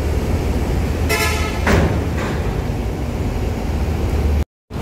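Heavy diesel vehicle engines idling in a steady low rumble as trucks board a ferry, with a short vehicle horn toot about a second in. The sound drops out for a moment near the end.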